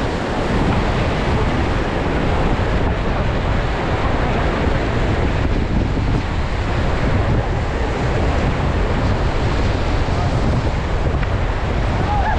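Whitewater on the Ganga rushing steadily and loudly, mixed with wind buffeting the microphone.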